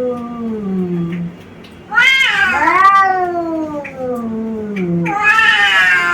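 Domestic cat yowling in long, drawn-out calls that rise and then slowly sink in pitch: one call fades out about a second in, another runs for about three seconds from two seconds in, and a third begins near the end. This is the threatening caterwaul of a cat squaring up to another cat.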